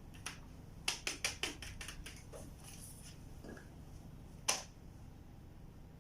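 A quick run of five or six small sharp clicks and taps, then one louder sharp click a few seconds later, from small plastic and silicone fidget toys being handled and set down on a table.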